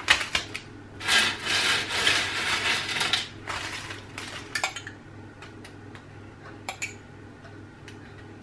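Handfuls of cooked fries being dropped and spread in a foil-lined tray, the aluminium foil crinkling and rustling for a couple of seconds, followed by a few light clicks.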